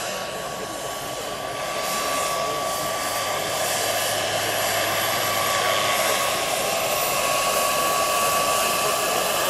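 Large-scale RC AgustaWestland AW139 model helicopter in flight: its small gas turbine gives a steady whine over the rotor noise, getting a little louder about two seconds in as it comes closer.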